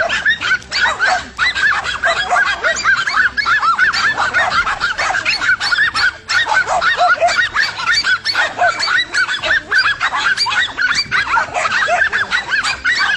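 A dense chorus of many short, overlapping animal calls, several a second, with no break.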